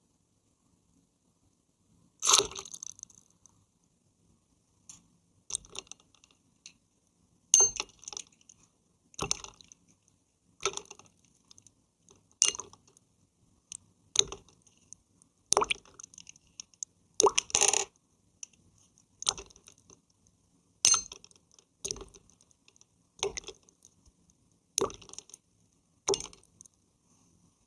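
Short wet splashes of water played by hand, a regular series of about one every second and a half.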